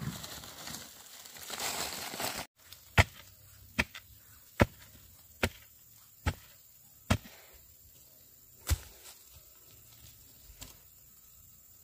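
Seven sharp chopping strikes on wood, a little under one a second with a longer pause before the last, after a rustling noise that cuts off abruptly.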